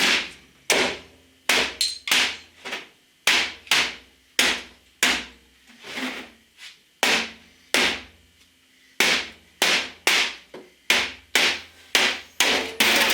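Hammer blows striking an old computer in quick, irregular succession, about two a second, each hard hit ringing briefly. There is a short pause in the strikes roughly halfway through.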